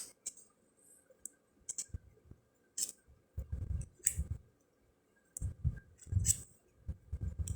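Stiff round fortune cards handled and flipped one by one: irregular small clicks and soft taps, with pauses between.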